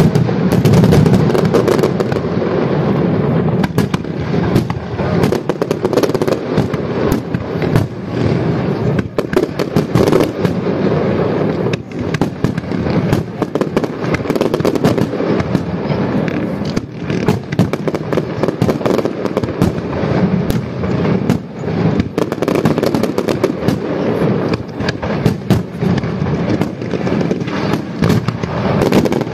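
Large fireworks display (castillo de fuegos artificiales) going off in a dense, continuous barrage: many loud, sharp bangs overlapping with no pause.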